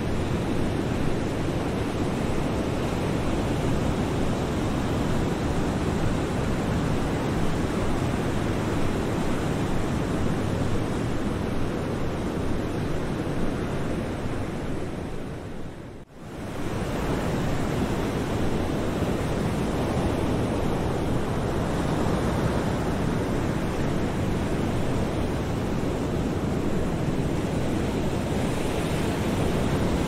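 Ocean waves washing against the shore in a steady rush of surf. About halfway through, the sound fades briefly almost to silence and swells back.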